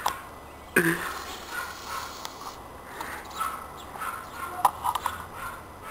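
A man retching once, a short throaty heave about a second in, from a stomach overfilled with cola; then only a faint outdoor background.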